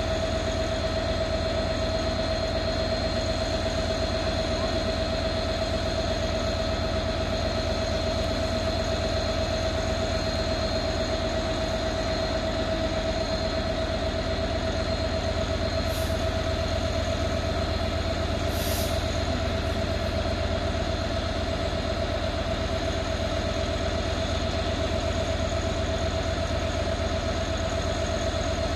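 Diesel freight locomotive standing at the head of a container train with its engine idling, a steady rumble with a constant whine over it. Two short hisses come a little past halfway.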